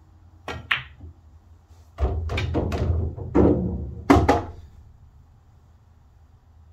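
Pool shot: the cue tip strikes the cue ball and it clicks sharply into an object ball about half a second in. From about two seconds in, the pocketed ball clatters and rumbles down through the table's ball-return channel for a couple of seconds, ending in a loud knock.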